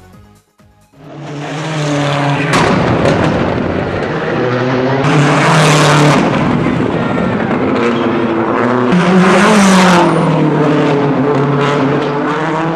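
Rally cars driving past on a tarmac stage, engines revving hard and rising and falling in pitch through gear changes. The sound starts about a second in after a brief near-silent gap and is loudest as cars pass close.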